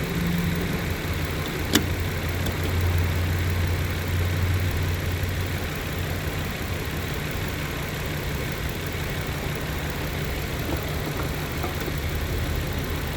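A 2012 Nissan Frontier's engine idling steadily, with one sharp click nearly two seconds in.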